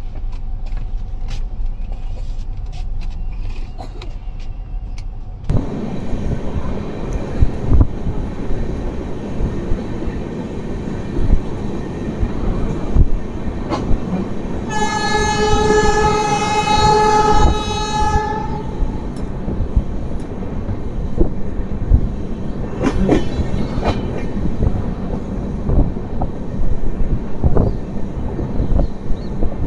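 Express train running at speed, heard from an open coach doorway: wheels clattering over rail joints, with rushing air. About halfway through, the locomotive horn sounds one long steady blast of about three and a half seconds.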